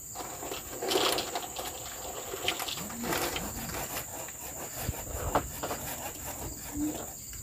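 Steady high-pitched insect drone of forest crickets or cicadas, with a few scattered soft knocks and taps.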